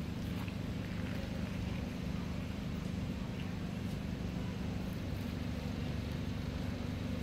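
Steady low rumble of nearby vehicle engines, with a few faint ticks.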